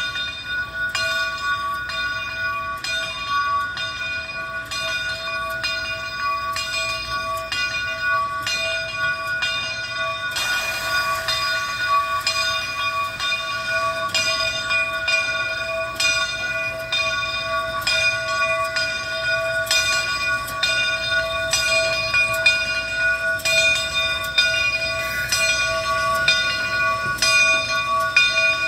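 Steam locomotive's bell ringing steadily in an even, repeated rhythm as the engine runs slowly toward the station, with a brief hiss of steam about ten seconds in.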